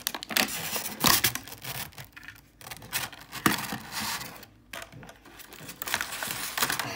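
Toy packaging being handled as a small toy vehicle is worked out of it: irregular rustling and scraping of plastic and cardboard with a few sharp clicks and knocks, the loudest about a second in and again about three and a half seconds in.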